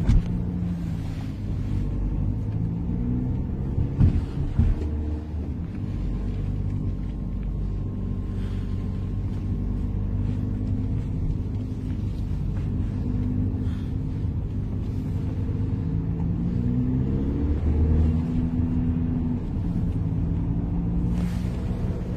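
Car driving off a roll-on roll-off ferry, with a steady low road and engine rumble and a sharp thump about four seconds in. Background music plays softly under it.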